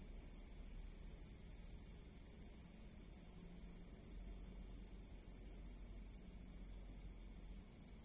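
Night insect chorus: a steady, high-pitched trill that does not let up.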